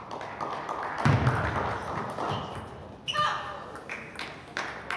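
Table tennis rally: the celluloid ball clicks sharply off the bats and table at an irregular pace, with a heavier thump about a second in. Voices murmur and other tables click in the background of the echoing sports hall.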